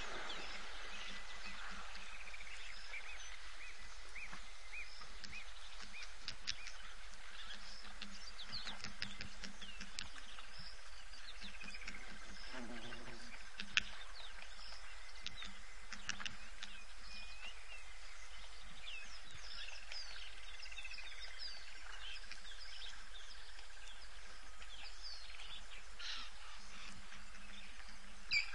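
Bush ambience of various wild birds calling in short whistles and chirps, over a steady faint high-pitched hum, with one sharp click about fourteen seconds in.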